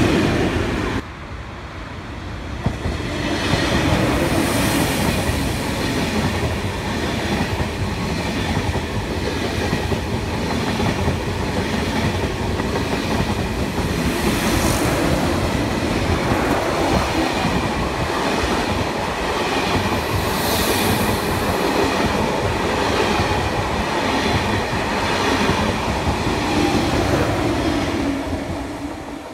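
A TGV high-speed train passing close by with a steady rumble, its wheels clattering over the rail joints. It builds up a few seconds in and fades away near the end. Before that, the last of a freight train's tank wagons dies away about a second in.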